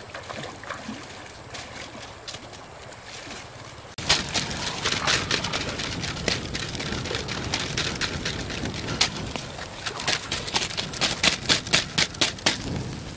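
Faint trickling river water, then, from about four seconds in, a wood campfire being blown on and fanned with a dried leaf fan: a loud rushing hiss followed by a quick run of whooshing fan strokes, about three a second, near the end.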